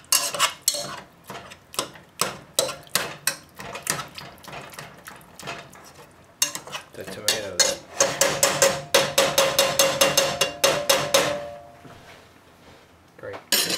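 Metal potato masher repeatedly knocking against the bottom of a stainless steel saucepan as it mashes cooked tomatoes and garlic. The strokes come about two or three a second at first, then speed up in the middle with the pan ringing, and stop shortly before the end.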